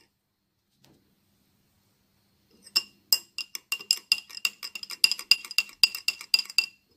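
A spoon stirring sugar and black pepper into boiling water, clinking rapidly against the sides of the vessel. The clinking starts nearly three seconds in, at several quick ringing taps a second, and stops just before the end.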